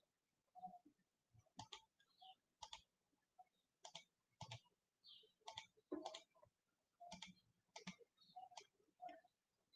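Near silence with faint, irregular clicks, one or two a second, some in quick pairs.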